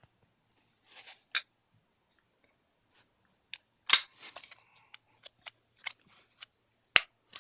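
Handling clicks and snaps from AR-15 rifle parts being worked by hand, likely the sling's quick-release or the stock. The clicks come scattered, with the sharpest about four seconds in and again near the end.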